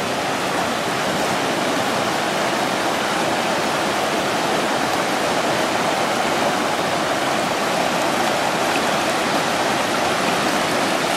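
Fast-flowing river rushing over rocky rapids: a loud, steady, even rush of water.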